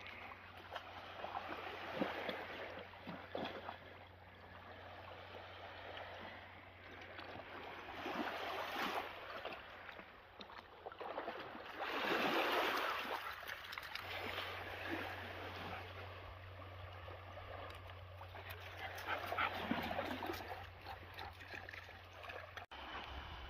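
Small waves washing gently onto a pebble shore in slow swells, the largest about halfway through, over a faint steady low hum.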